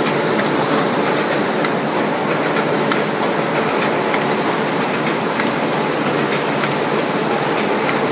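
Wuxi Nanjiang HD 430 paper-processing machine running on a test run: a steady mechanical clatter of its conveyor rollers and moving parts, with light clicks now and then.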